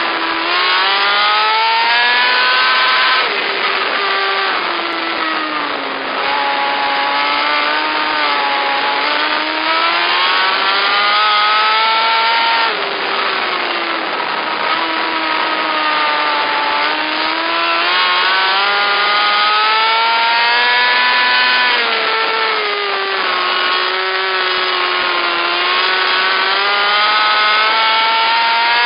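Several micro sprint cars' motorcycle engines running hard around a dirt oval. The pitch climbs and drops together about every nine seconds as the cars accelerate down the straights and lift into the turns, lap after lap.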